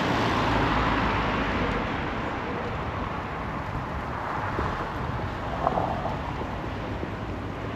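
Road traffic noise on a residential street: a car passing, loudest over the first couple of seconds and then fading into a steady low hum.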